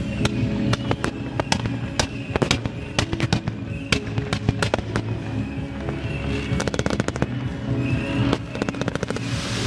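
Fireworks banging and crackling in quick succession, with a dense rapid run of crackles about two thirds of the way through, over music playing for the show.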